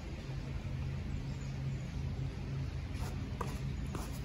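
Steady low outdoor rumble, with a few faint knocks in the last second or so from a tennis ball being struck and bouncing on a clay court.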